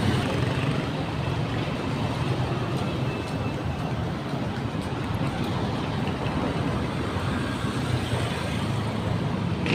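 Road traffic noise: cars and motorcycles running past, a steady, unbroken hum.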